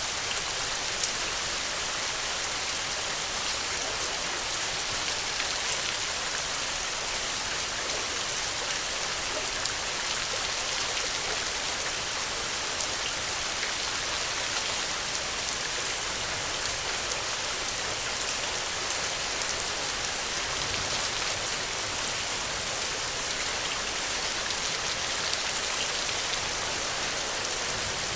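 Steady rain falling, a continuous hiss with scattered individual drops ticking through it.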